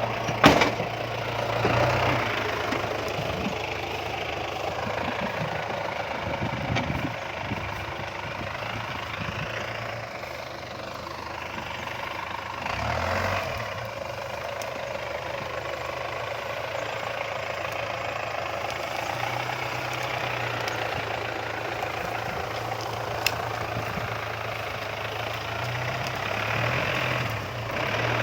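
Daihatsu Taft 4x4's swapped-in Toyota Dyna truck diesel engine running steadily at low revs as the vehicle crawls over a rough off-road track, with a sharp knock about half a second in.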